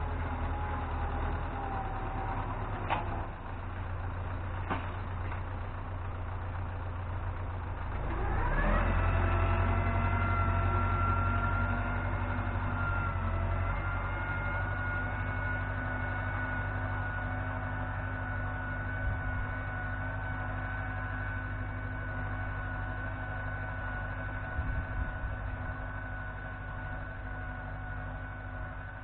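Tractor engine running steadily while ploughing; about eight seconds in it revs up with a quick rising whine, then holds a steady higher-pitched hum.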